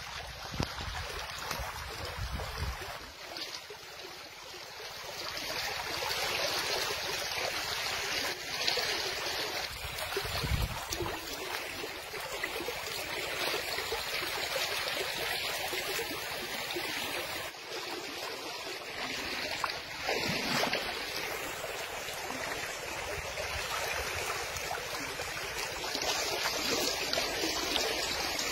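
Shallow river water flowing and rippling steadily, a continuous rushing hiss.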